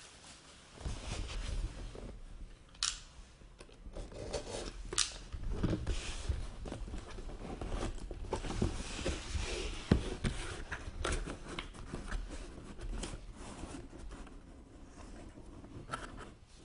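A sealed cardboard collectibles box being cut open and unpacked by hand: sharp clicks and snips, rustling and scraping of cardboard and packing, and dull bumps of handling on a table.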